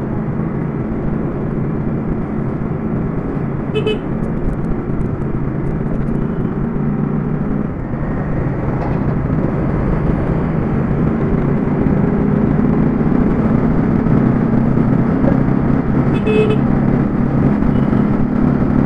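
Motorcycle engine running steadily while riding along a street. A horn toots briefly twice, about four seconds in and again some twelve seconds later.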